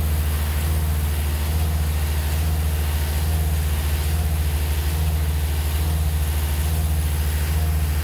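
A heavy engine idling steadily, a constant low drone.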